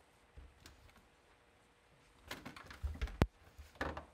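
Light clicks and knocks from a plastic cat flap with a dog's head through it, jostled as a cat paws at the dog. A few close together in the second half, with one sharp click about three seconds in.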